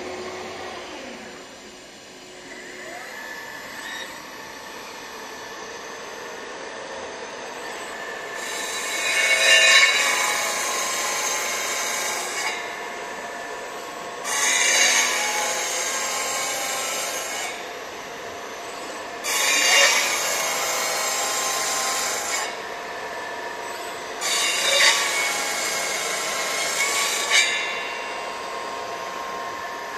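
Disc saw on a CNC router spindle cutting a PVC sheet in four straight passes, each a loud, high rasping cut lasting three to four seconds. Between the cuts the spindle runs on with a steady whine.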